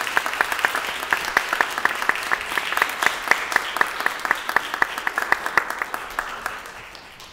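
Audience applauding in a recital room, the clapping thinning out and dying away near the end.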